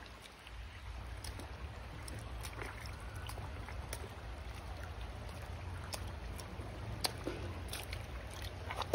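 Shallow creek running over rocks, a steady watery hiss with a low rumble beneath it. Scattered sharp clicks and knocks of stones underfoot as someone wades.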